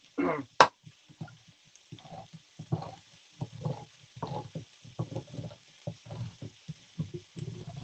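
Handheld can opener being turned around a tin can: a sharp click about half a second in, then a run of short grinding crunches, about two a second, as the cutting wheel works round the rim.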